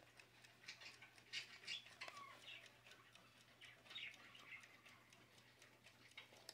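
Faint steady ticking of a Sabre wind-up alarm clock's movement, with a few faint high chirps over it.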